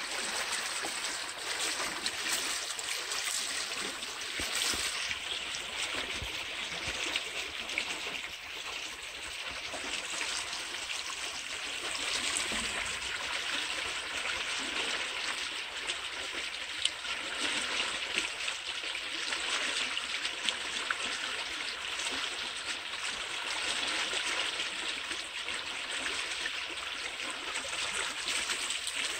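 Canal water flowing steadily, an even rushing sound.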